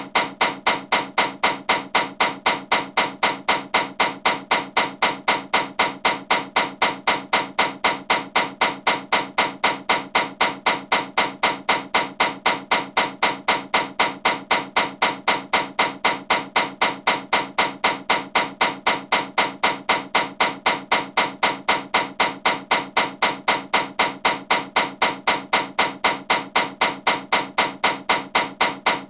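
Ceiling fan knocking loudly as it turns, a sharp click about four times a second, keeping the same steady beat throughout.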